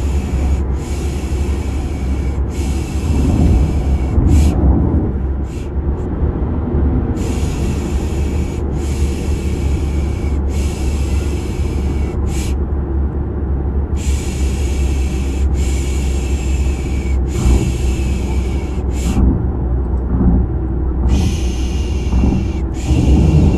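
Repeated 'pish pish' shushing, three long shushes and then a short one, the group coming back every few seconds, over the steady low drone of a running car. A looped baby-soothing mix of shushing and car noise.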